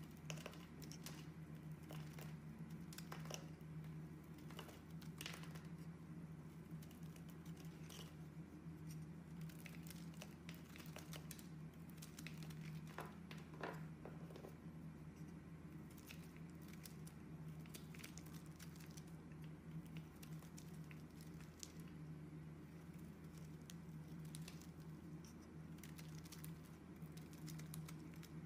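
A utility-knife blade shaving and slicing bars of soap: faint, irregular scraping crackles as flakes peel off and fall, over a steady low hum.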